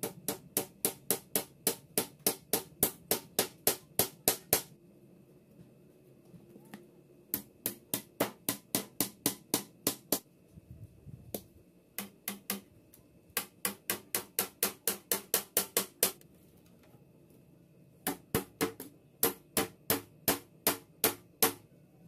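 Pliers used as a hammer, tapping small nails through a plywood panel into a wooden frame. The sharp taps come in quick runs of about three a second, with short pauses between runs.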